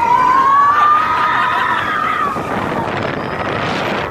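Euro-Mir spinning roller coaster car running along its track with wind rushing past the microphone. A high tone rises slowly for about two seconds, then fades, leaving the track rumble and wind.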